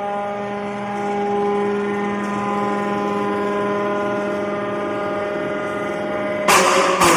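Pineapple-leaf fibre decorticator machine running with a steady, pitched motor hum, then near the end a much louder rough rasping noise cuts in suddenly.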